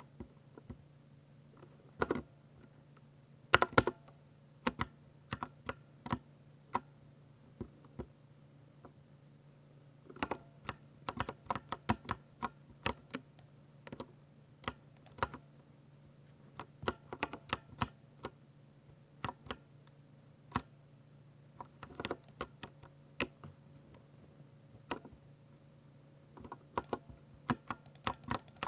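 Typing on a Ducky 60% mechanical keyboard with silver switches. The keystrokes come as sharp clicks in irregular flurries separated by short pauses, with a few louder single strokes, and grow denser near the end.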